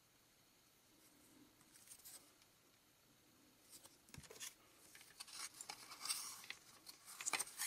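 Cardboard 1982 Donruss baseball cards being handled: faint rustles, a soft knock about four seconds in, then card stock sliding and scraping against the stack as a card is slid off, loudest near the end.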